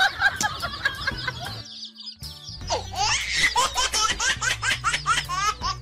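Many chicks peeping in quick, overlapping falling calls over background music. The calls pause briefly about two seconds in, then come back thicker.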